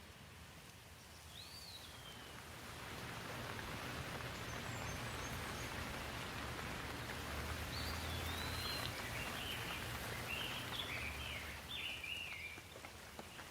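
Rain falling, swelling in strength over several seconds and then easing a little, with birds chirping over it: one call about a second in, then a run of short chirps in the second half.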